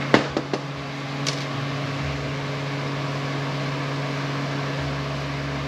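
A few sharp clicks in the first half second and one more about a second later, as small metal parts of an air impact wrench are handled on the bench, over a steady background hum.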